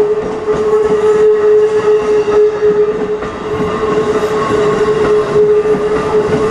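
Level-crossing warning bell sounding steadily, a single held pitch with overtones, as a Keikyu Airport Line train runs over the crossing with irregular wheel clatter on the rails.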